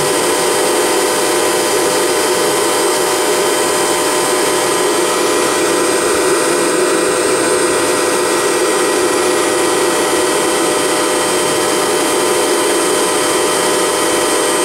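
CNC router spindle running and its bit cutting a wooden column that turns on a rotary axis: a steady whine from the spindle over the even noise of the cut.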